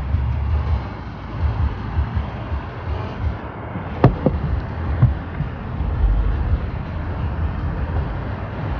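Wind rumbling on the microphone over a steady rush of water spilling from a weir, with two sharp clicks about four and five seconds in.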